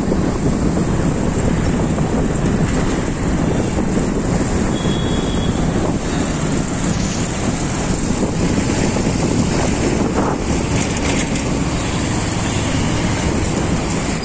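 Steady wind noise on the microphone over the engine and road noise of a moving motorbike in city traffic.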